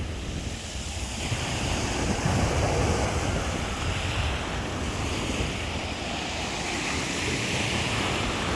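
Black Sea surf breaking and washing on the shore in slow swells, with wind buffeting the microphone.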